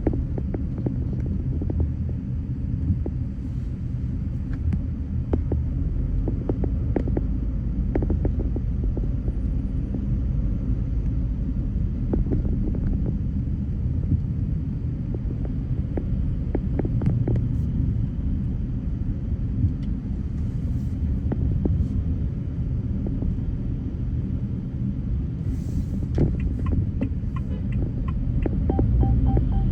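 Car driving in traffic: a steady low rumble of road and engine noise, with scattered faint ticks.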